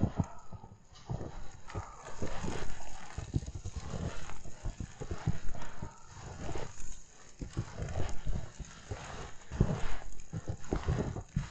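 Footsteps crunching through fresh snow at a walking pace, roughly one step a second.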